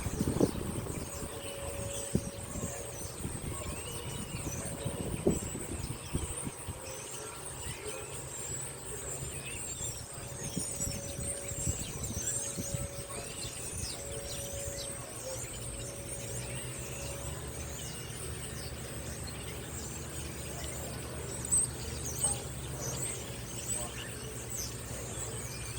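Outdoor ambience: a steady high insect drone with birds chirping now and then, over a low mechanical hum and a faint whine that comes and goes, from a dryer vent fan. The siren itself is not sounding.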